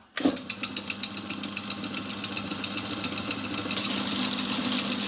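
A hand-built micro lathe is switched on about a quarter of a second in and runs steadily with a constant hum and a fast, even ticking, growing slightly louder. The belt drive turns the spindle through its bronze cone clutch with no load on, and it drives fine.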